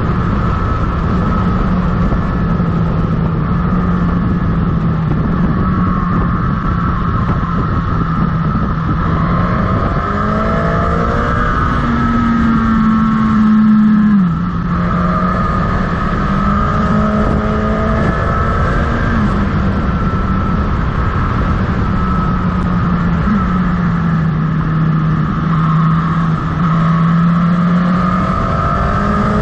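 Motorcycle engine running under way, its pitch stepping up and down with the throttle and dropping sharply about halfway through, over steady wind rush on the microphone.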